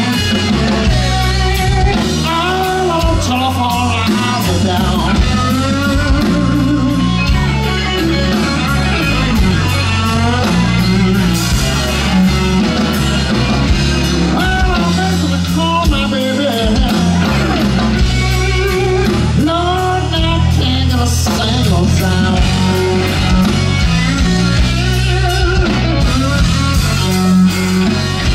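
Live slow blues from electric guitar, bass guitar and drums, with lead notes that bend up and down in pitch over a steady bass and drum groove.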